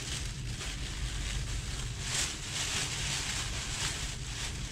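Thin plastic bag rustling and crinkling as a loaf of bread is pulled out of it, in irregular crackles, loudest about two seconds in and again near the end, over a steady low background hum.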